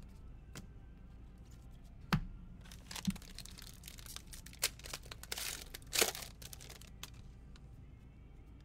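A 2018-19 Donruss basketball card pack being torn open, its wrapper tearing and crinkling in a run of short rips about three to six seconds in. It is preceded by two sharp knocks about two and three seconds in.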